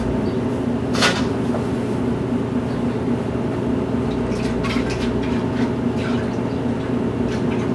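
Wort sloshing inside a one-gallon glass fermenter jug as it is rocked back and forth to aerate it, with a sharp click about a second in, over a steady background hum.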